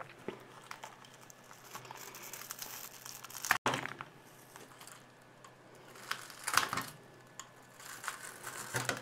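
Crackling and crinkling of a cracked tablet digitizer glass, covered in packing tape, as it is peeled off its adhesive and handled; louder bursts of crackling a little after three seconds in, about six and a half seconds in and near the end.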